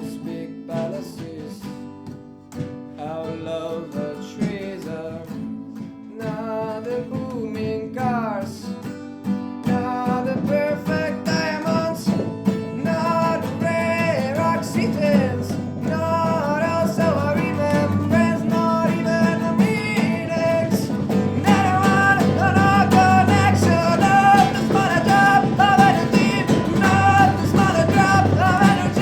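Live, unmixed acoustic band music: acoustic guitars with a melody line over them. The low end fills in about ten seconds in, and the music builds steadily louder.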